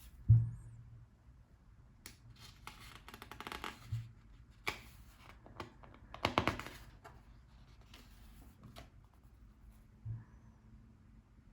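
Pages of a cookbook being turned by hand: a soft thump near the start, then two stretches of paper rustling as pages flip over, with lighter knocks in between.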